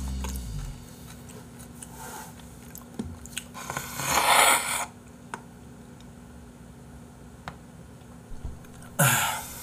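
A man blowing his nose into a tissue, with a cold: one blast of about a second roughly four seconds in and a shorter one near the end. Small tissue rustles and clicks come between them.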